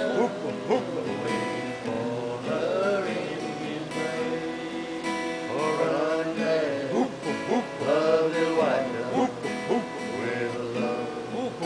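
Acoustic guitar strummed, with a voice singing along.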